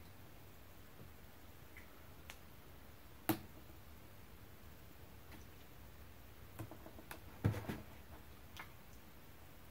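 Metal spoon clinking and scraping against a plastic takeout container and a bowl as curry is spooned over rice. Scattered light clicks, the sharpest about three seconds in and a cluster of them around seven to eight seconds.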